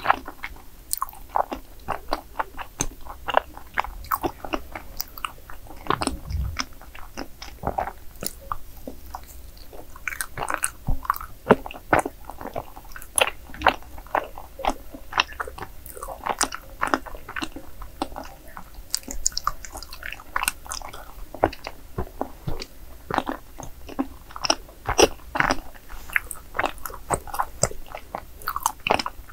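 Chewing of chewy cream-filled rice cake (cream tteok): an irregular, dense run of mouth clicks and smacks.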